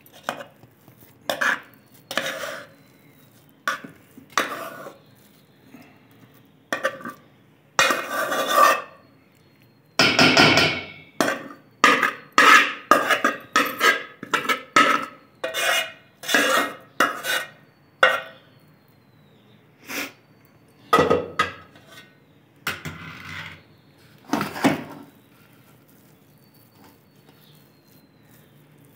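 Metal spoon scraping and clinking against a metal pot and a steel plate as thick semolina halwa is scooped out of the pot and spread on the plate. Irregular scrapes, with a dense run of quick strokes in the middle that thins out near the end.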